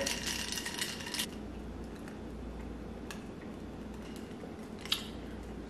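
Ice cubes shifting and clinking in a stemmed glass while it is handled and sipped from: a short rattle for about a second at the start, then a couple of faint single clinks, over a low steady hum.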